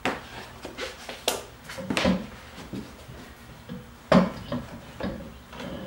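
Metal clanks and knocks of an alloy wheel being lifted and fitted onto a car's front hub, with a louder pair of knocks about four seconds in.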